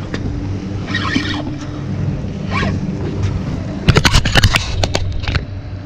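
Steady low drone of a boat motor running, with a rapid run of sharp clicks or slaps starting about four seconds in and lasting about a second and a half.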